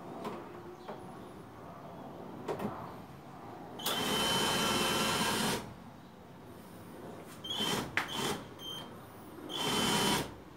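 Cordless drill/driver whining as it drives a screw into a door frame: one run of about two seconds, then a few short bursts, then one more brief run near the end, with a few sharp clicks between runs.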